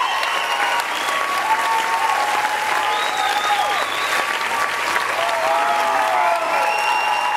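Theatre audience applauding steadily, with cheering voices and whistles gliding over the clapping.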